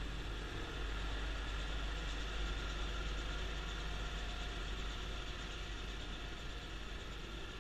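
Kubota B2650 compact tractor's three-cylinder diesel running steadily while driving its front-mount snowblower, with the blower's steady rush over the engine's low drone.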